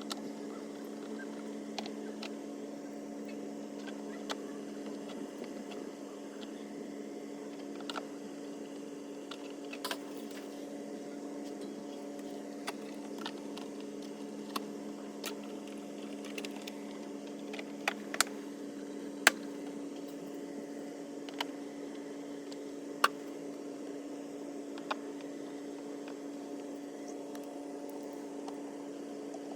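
Scattered sharp clicks and knocks of plastic swamp-cooler parts being handled and fitted during reassembly, over a steady low hum.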